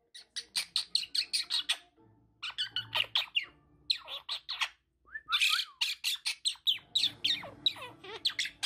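Quaker parrot (monk parakeet) chattering in fast runs of short, high-pitched chirps and squawks, with brief pauses about two seconds and five seconds in.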